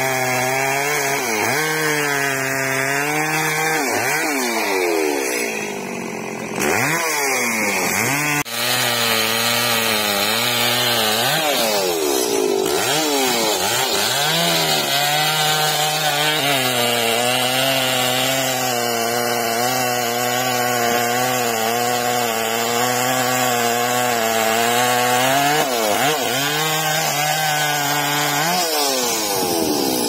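Petrol chainsaw cutting through a thick tree trunk, its engine running under load. The revs sag and pick up again several times, then fall away near the end as the saw comes out of the cut.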